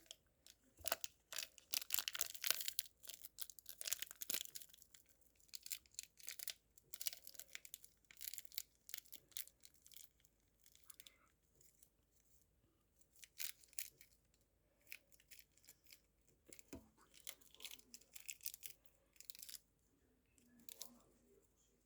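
Plastic instant-ramen packaging crinkling and tearing in short, irregular bursts that come in clusters, with a lull about halfway through.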